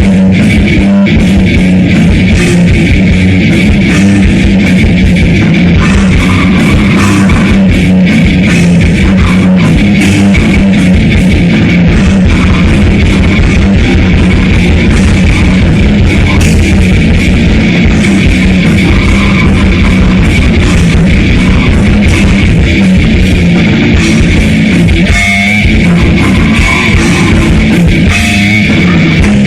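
Grindcore/death-metal band playing at full volume in rehearsal: heavily distorted electric guitars over fast, constant drumming, with a brief break in the pattern about 25 seconds in.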